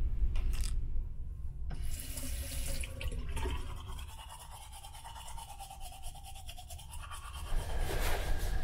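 Teeth being brushed at a cabin washbasin, over the steady low rumble of the ferry's engines.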